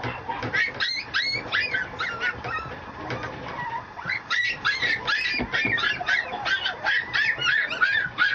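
Mame shiba puppy whimpering in rapid, high-pitched squeaks, a flurry in the first two seconds and a longer, busier run from about four seconds in.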